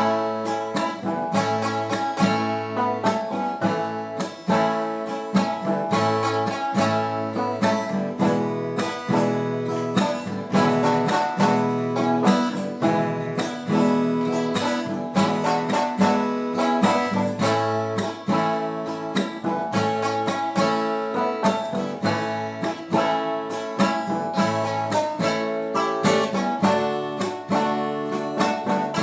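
Viola de buriti, a Brazilian folk viola made of buriti palm wood, strummed and plucked in a steady instrumental passage of a hymn tune.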